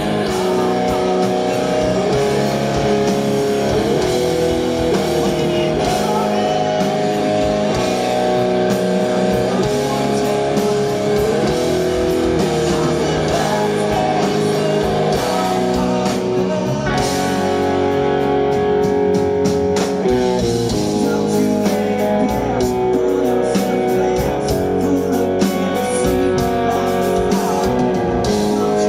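Live rock band playing with no vocals: electric guitar lead over bass and drums.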